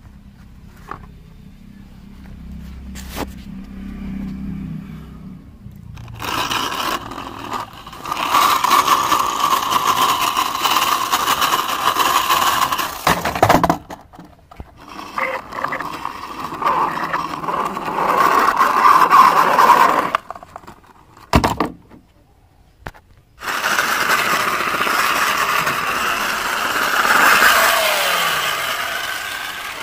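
Plastic toy vehicles pushed by hand over rough wooden logs, their wheels making a grinding scrape on the wood in several stretches broken by short pauses, with a whine falling in pitch near the end.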